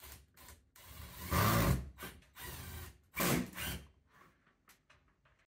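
Cordless drill driving screws in several short bursts, the loudest about a second in and again about three seconds in, as a CoolBot Pro controller is fastened to a walk-in cooler's metal wall. A few light clicks follow near the end.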